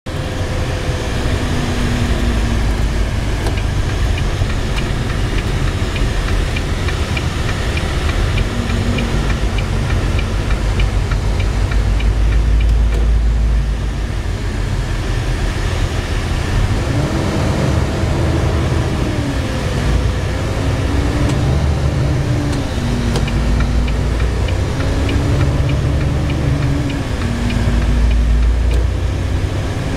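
Vehicle engine and road rumble heard from inside the cab while driving slowly in traffic. The engine's pitch rises and falls several times in the second half as speed changes. A light regular ticking comes and goes over the rumble.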